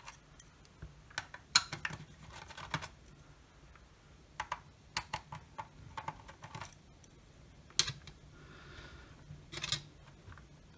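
Small screwdriver clicking and tapping as tiny screws are undone from a circuit board in a plastic projector housing, with irregular light clicks of the screws and parts being handled.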